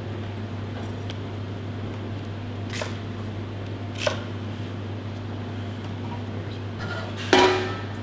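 Steady low hum, with two sharp strokes of a chef's knife on a plastic cutting board in the middle, then a loud clatter of a metal tray with a short ring near the end.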